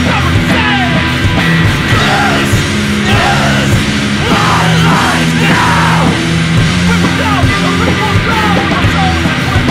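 Loud, fast trash-rock (punk) song played by a full band, with yelled vocals.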